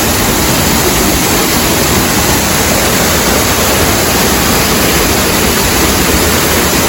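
Urlătoarea waterfall, a mountain waterfall about 50 m high, falling into its pool with a loud, steady, even rush of water.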